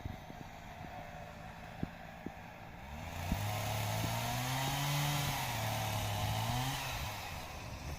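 Chainsaw engine revving up and back down for about four seconds in the middle, its pitch rising and then falling.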